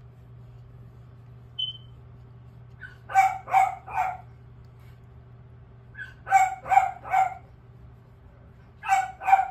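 A dog barking in short bursts: three quick barks, then three more, then two near the end.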